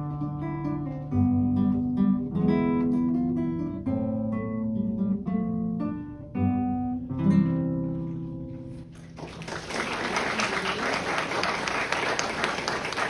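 Acoustic guitar playing a slow passage of plucked notes that ends on a final chord left to ring. About nine seconds in, audience applause starts and runs on until the end.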